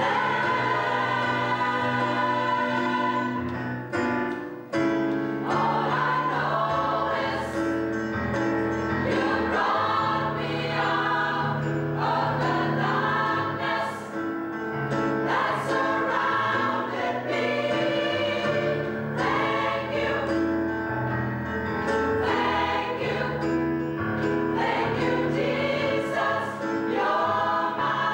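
Mixed gospel choir of women's and men's voices singing together in held, sustained phrases, with brief breaths between phrases about four and fourteen seconds in.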